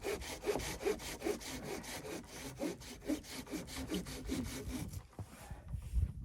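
Wood being cut with a hand saw in quick, steady back-and-forth strokes that stop about five seconds in.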